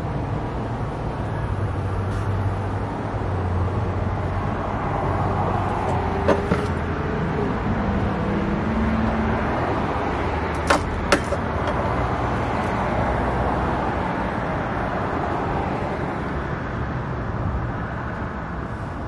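Car running with steady engine and road noise, and two pairs of sharp clicks about six and eleven seconds in.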